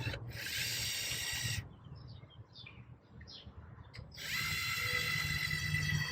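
12-volt cordless electric caulking gun's motor whining steadily as it drives the plunger, stopping for about two and a half seconds in the middle and then starting again.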